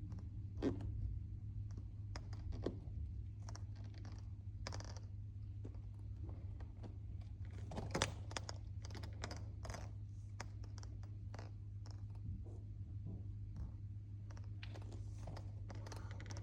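Raindrops tapping irregularly on a hard surface, making many scattered sharp ticks, over a steady low hum. One tap about halfway through is louder than the rest.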